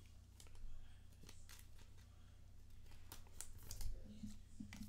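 Faint handling of trading cards: scattered soft clicks and rustles as cards are flipped and slid through the hands, over a low steady hum.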